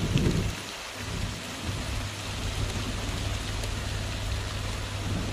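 Heavy rain hissing steadily during a storm, with a steady low hum underneath. A low rumble dies away in the first half second.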